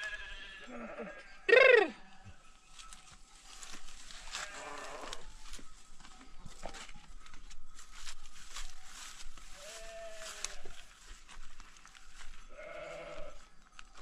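Sheep bleating several times, the loudest call about two seconds in with a quick fall in pitch, with scattered clicks and rustles in between.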